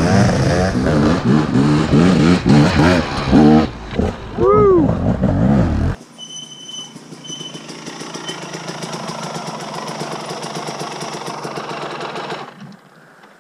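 Two-stroke enduro motorcycle engine revving hard on a tight trail climb, its pitch rising and falling with the throttle, with one sharp blip about four and a half seconds in. Midway the sound drops suddenly to a quieter engine running at low revs, which fades out near the end.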